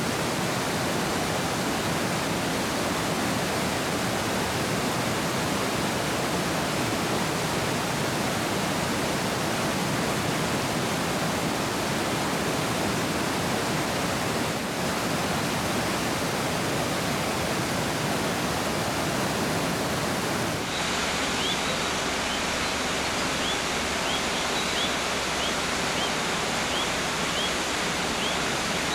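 Mountain stream rushing in an even, steady hiss. About two-thirds of the way in, the water sound shifts slightly and a small songbird starts calling over it with short, high, upswept chirps, about one a second.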